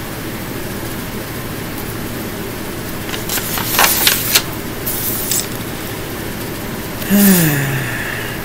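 Steady background hiss. In the middle come a couple of seconds of light rustling and metallic jingling from bracelets and jewelry as hands move. Near the end a woman gives one short hum that falls in pitch.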